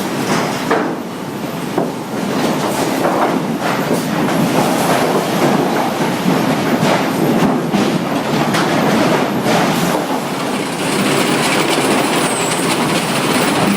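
Sawmill machinery running: a loud, continuous clatter of rolling and knocking with many sharp knocks, and a higher hiss joining about three-quarters of the way through.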